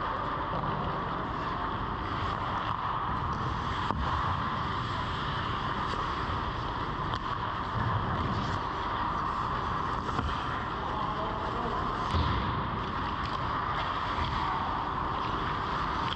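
Ice arena ambience: a steady rushing noise with a few light knocks and scrapes from skates and sticks on the ice, the sharpest one about twelve seconds in.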